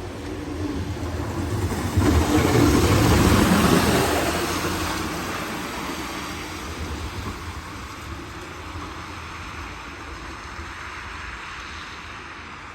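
A motor vehicle going by: engine rumble and road noise that swell suddenly about two seconds in, then slowly fade away.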